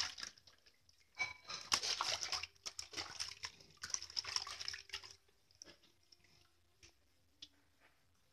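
Water splashing and sloshing in a large metal basin as a baby is washed by hand, in irregular bursts that stop about five seconds in, followed by a few faint drips.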